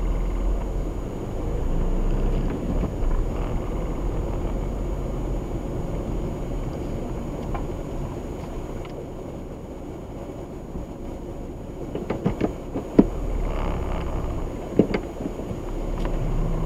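Car driving slowly, heard from inside the cabin: a steady low engine and road rumble, with a few sharp clicks near the end.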